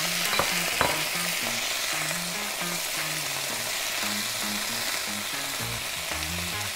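Spinach leaves with onion and sweet peppers sizzling in a hot non-stick frying pan as a spatula stirs and tosses them, with two sharp knocks of the spatula against the pan within the first second.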